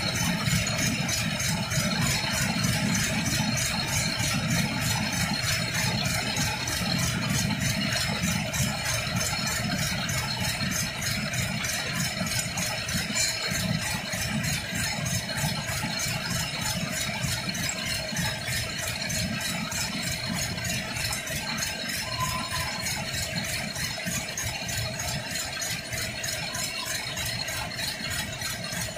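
Textile machine producing knitted shade netting running steadily: a continuous mechanical rattle with a fast, even clicking rhythm.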